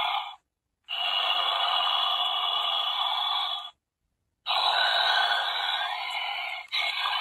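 Tinny, hissy sound from the Billy Butcherson Sidestepper animatronic's small built-in speaker, cut off completely twice, about half a second in and again near four seconds.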